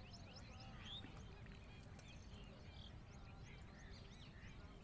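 Faint chorus of birds chirping: many short, quick chirps overlapping one another, over a low steady background rumble.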